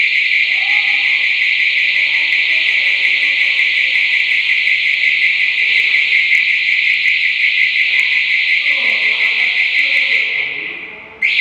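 An alarm ringing continuously with a high, steady tone; it fades away near the end and then starts again sharply.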